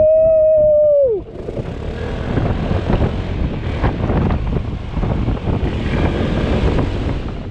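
A loud, high held note that lasts about a second and drops away at the end. It gives way to steady wind buffeting and running noise from the Yamaha XMAX 300 scooter under way.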